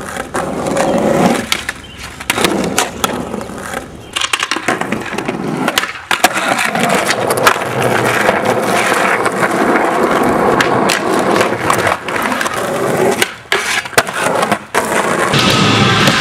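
Skateboard wheels rolling over concrete and plywood ramps, broken by many sharp clacks of the board popping and landing. The sound changes abruptly several times as the clips cut.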